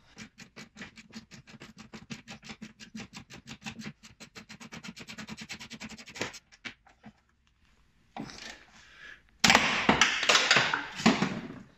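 A ratchet wrench with a 13 mm socket clicking quickly and evenly as a strut top-mount bolt is undone. The clicking speeds up and stops about six seconds in. Near the end comes a loud burst of metallic clattering.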